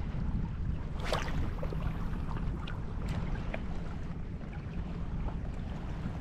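Wind noise buffeting the microphone over small sea waves lapping in shallow water, with a short rush of noise about a second in.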